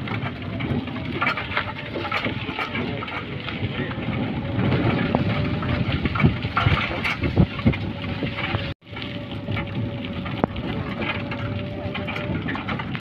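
Ride noise of a small open passenger vehicle on a rough village road: steady running noise with continual rattles and knocks. There is a short break about nine seconds in.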